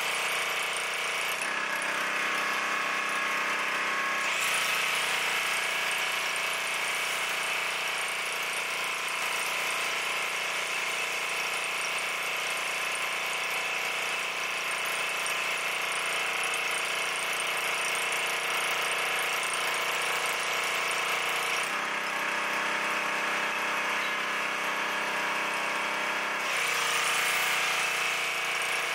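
Duromax 2700 PSI gas pressure washer's 5 HP engine running steadily while the foam cannon sprays with a steady hiss. Twice, for about three to five seconds each, about a second and a half in and again about 22 seconds in, the spray hiss drops and the engine note changes, as when the spray trigger is let go.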